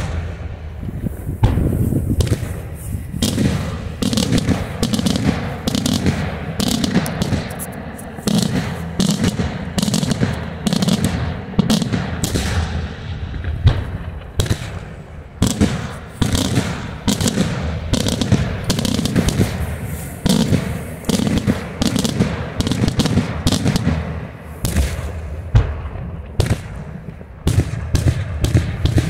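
Daytime fireworks display: a dense, continuous barrage of aerial shells and salutes bursting overhead. Many sharp bangs follow in quick succession and overlap into a steady low rumble.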